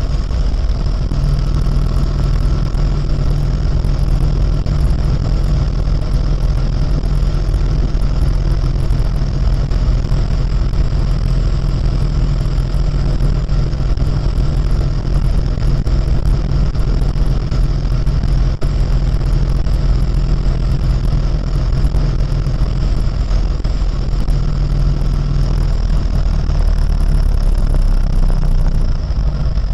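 Harley-Davidson Road King's V-twin engine running steadily at highway cruising speed, heard on board the bike.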